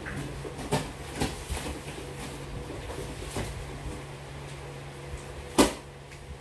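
Large cardboard TV carton being handled and lifted: scattered knocks and scrapes, with one sharp, louder knock about five and a half seconds in, over a steady low hum.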